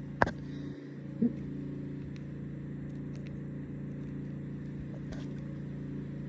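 Small engine of a gardener's power equipment running steadily at an even pitch, with a single light click just after the start.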